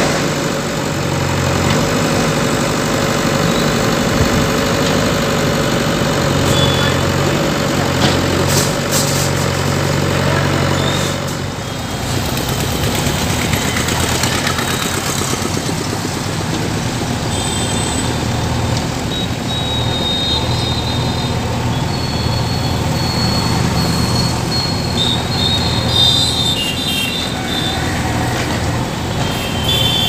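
JCB 3DX backhoe loader diesel engines running steadily under load while digging soil, with a brief dip in loudness about eleven seconds in.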